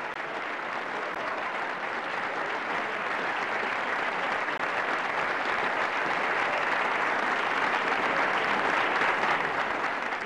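Audience applauding, a dense steady clapping that swells toward the end.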